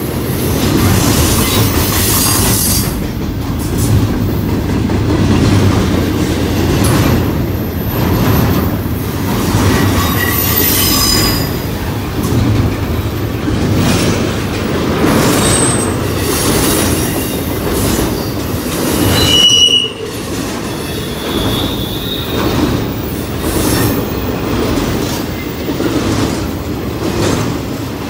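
Freight train of double-stack container well cars rolling past close by: a steady heavy rumble of steel wheels on rail, with a rhythmic clatter as trucks cross the rail joints. A few short, high-pitched wheel squeals come about halfway through and again a little later.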